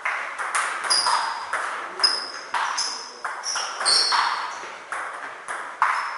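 Table tennis rally: the celluloid ball clicking off rackets and the table about twice a second, each click echoing briefly in the hall. Short high squeaks of shoes on the floor come in between the clicks as the players move.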